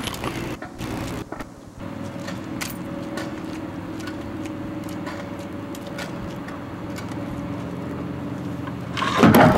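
Small boat's outboard motor running at a steady pitch, coming in about two seconds in; a brief louder burst of noise near the end.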